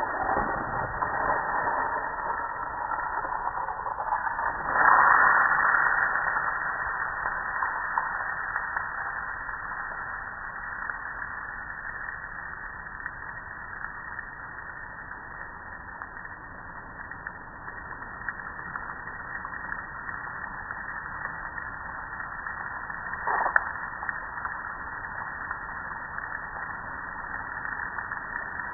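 Steady hiss of water spattering onto a gas grill's metal lid and side shelf, louder for a moment about five seconds in, with one sharp knock near the end.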